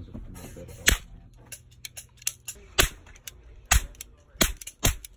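Toy cap gun firing: about five sharp cracks at uneven intervals, with fainter clicks between them.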